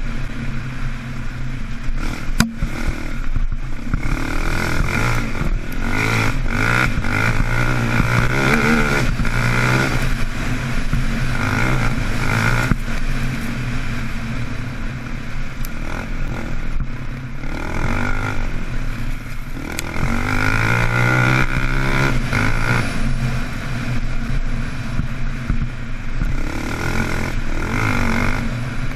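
KTM 525 XC quad's single-cylinder four-stroke engine pulling hard along a dirt track, revving up and dropping back again and again as the throttle is worked, with a few sharp knocks from the bumpy ground.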